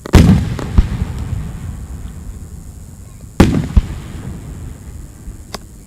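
Aerial firework shells bursting: a loud boom right at the start and another about three and a half seconds later, each followed within half a second by a smaller bang and a long fading echo.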